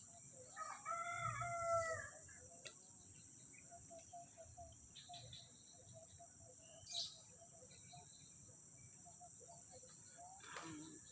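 A rooster crowing once, a call of about a second and a half near the start, followed by faint scattered bird chirps over a steady high-pitched insect drone.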